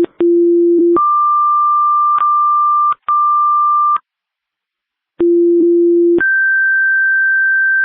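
Fire dispatch two-tone paging tones over the radio, calling out two fire stations. Each page is a low tone for about a second, then a higher tone held for about three seconds. The second page, after a short pause, ends on a higher tone than the first.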